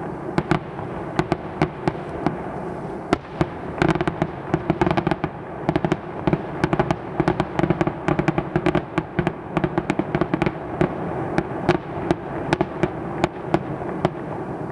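Fireworks going off: a rapid, irregular string of sharp pops and crackles, thickest from about four seconds in until near the end, over a steady background noise.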